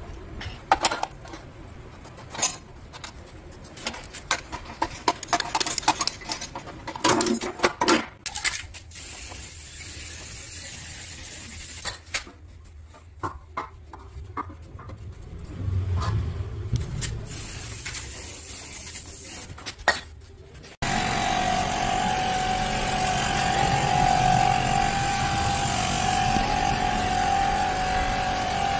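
Scattered metal clicks and knocks of hand tools working on a stripped-down motorcycle, then, after an abrupt cut about two-thirds of the way in, a small electric air compressor (a portable tyre inflator) running steadily with a constant whine.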